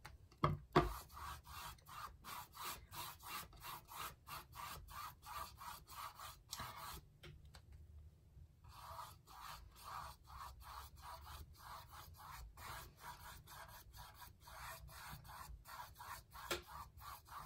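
Large paintbrush rubbing back and forth across a canvas in quick, even strokes, spreading black paint, with a short pause about seven seconds in. A couple of light knocks about half a second in.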